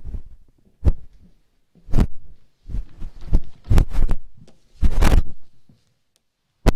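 Handling noise at a wooden lectern: irregular dull thumps and knocks with some rustling, picked up close by the lectern's microphone. The loudest thump comes near the end.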